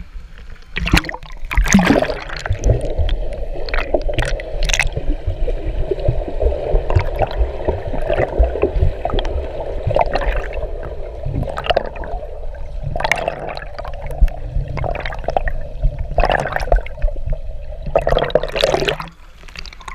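Water gurgling and bubbling as heard by a submerged camera: a muffled, churning wash with frequent sharp bubble pops and splashes. It comes in loudly about a second in and drops away sharply about a second before the end as the camera surfaces.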